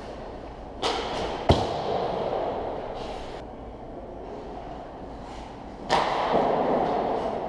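Hockey shooting on an ice rink: a rushing scrape about a second in, then a sharp crack of a puck impact just after, the loudest sound. A second sudden rushing scrape comes near the end and fades out over about a second, in the echo of the rink.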